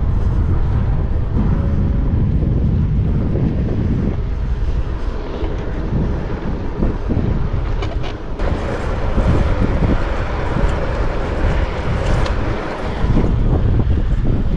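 Wind gusting over the microphone of a moving touring bicycle, with the tyres rolling on asphalt underneath: a loud, uneven rushing noise.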